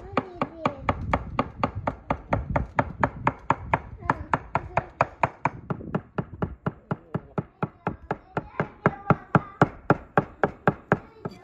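Knife chopping raw meat on a wooden cutting board: quick, even strokes, about four a second, mincing the meat.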